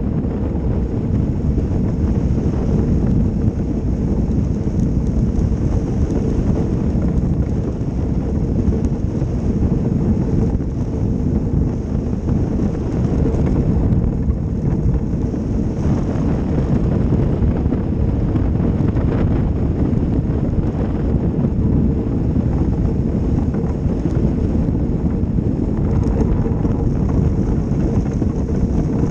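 Ice boat sailing over lake ice: the steel runners make a steady rumbling hiss on the ice, mixed with wind buffeting the microphone.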